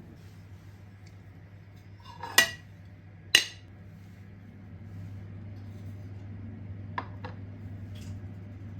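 Dishes and cutlery clinking: two sharp, ringing clinks about a second apart, then a few lighter taps near the end, over a steady low hum.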